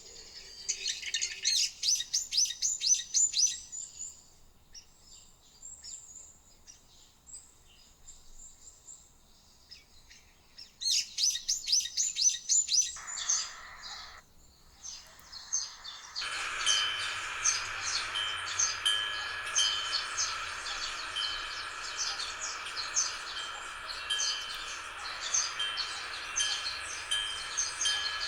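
Birds singing: two bursts of rapid chirping trills in the first half, then, from a little past the middle, a fuller, continuous chorus of calls over a steady hiss.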